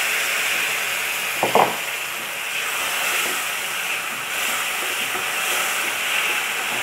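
Tomato, cashew and melon-seed paste sizzling as it fries in hot ghee in a kadhai, with a spatula stirring it. A steady hiss, with one brief knock about a second and a half in.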